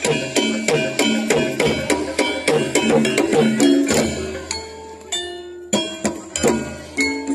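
Javanese gamelan music for a jathilan horse dance: metal percussion struck in a quick, even beat of about four notes a second. The beat thins out to a few ringing notes a little past the middle, then picks up again.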